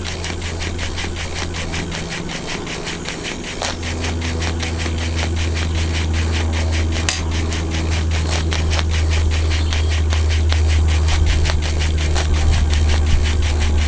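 RETROL model steam beam engine running smoothly under steam, with a rapid, even mechanical beat. A strong low rumble lies underneath and grows louder from about four seconds in, with one sharp click near the middle.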